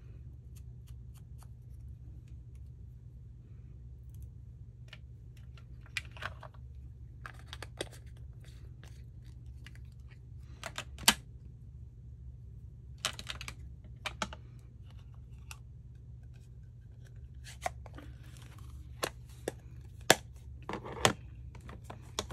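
Scattered light clicks and taps with a few short bursts of paper rustling as paper pieces and inking supplies are handled on a work table, over a steady low hum.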